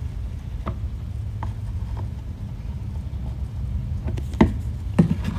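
Titebond II wood glue squeezed from a plastic bottle into pine finger joints: a few faint clicks and sputters over a steady low hum, then two louder knocks half a second apart near the end.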